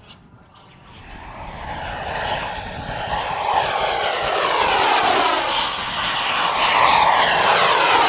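Radio-controlled model jet flying in, its engine's rushing jet noise with a thin high whine growing steadily louder from about a second in as it approaches.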